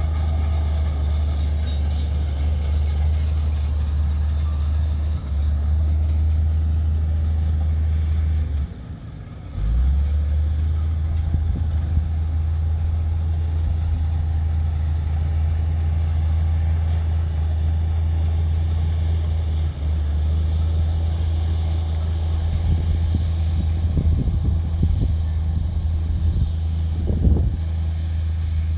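Heavy earthmoving machinery's diesel engine running with a steady low drone. The drone drops away briefly about nine seconds in and then comes back, and there are a few short louder sounds near the end.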